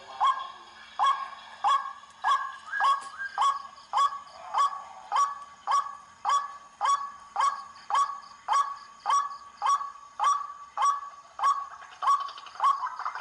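White-breasted waterhen calling: one short note repeated over and over at a steady pace of nearly two a second.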